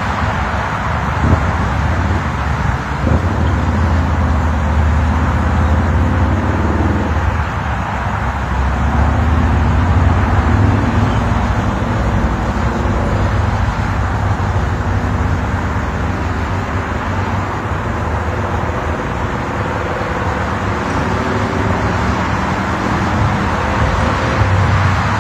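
Steady low rumble of road traffic, with a faint engine hum.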